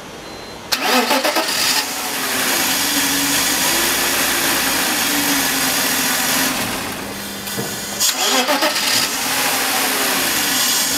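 BMW M54 straight-six engine cranked by the starter and catching about a second in, with a short rev flare before settling to a steady fast idle. About eight seconds in it cranks and catches again with the same flare. The car has a faulty intake camshaft position sensor that sends no signal (fault code P0340).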